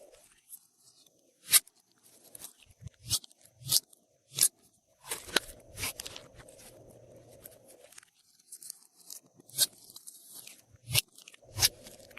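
Glossy slime being kneaded and pressed by hand, giving irregular sharp clicks and pops of varying loudness.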